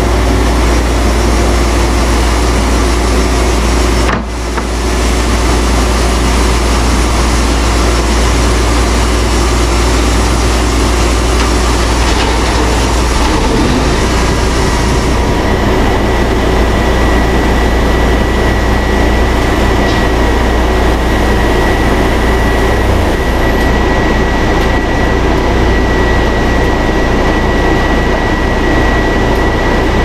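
Wood-Mizer sawmill and Baker edger running together: a loud, steady machinery din with a strong low hum. It briefly dips about four seconds in, and about halfway through the top end dulls and a steady high whine comes in.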